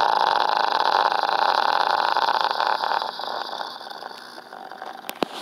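A man's long, drawn-out belch, rough and buzzing, that trails off about three to four seconds in; a couple of faint clicks near the end.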